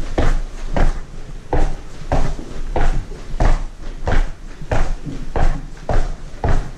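Footsteps walking down a stairway and onto a hard floor, a steady step roughly every two-thirds of a second, each a short knock with a dull thud beneath.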